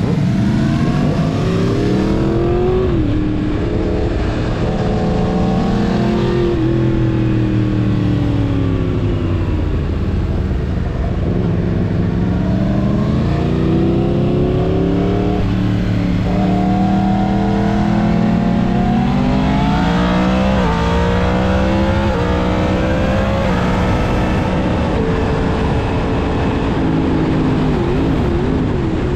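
Yamaha MT-10's crossplane inline-four breathing through a full Mivv exhaust, accelerating hard through the gears: the engine note climbs and drops sharply at each upshift, and between pulls it eases off with a falling note.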